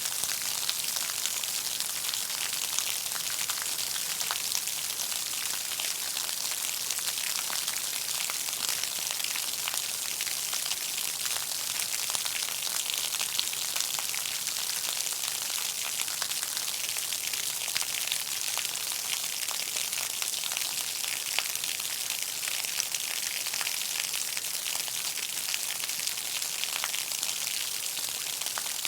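Heavy rain falling on pavement: a steady, dense hiss of countless drops hitting the hard surface, with fine individual drop ticks throughout.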